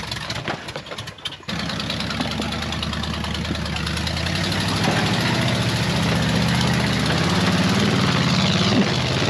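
Vehicle engine running and slowly gaining revs, its pitch and level climbing steadily over several seconds. There is a sudden jump in loudness about a second and a half in.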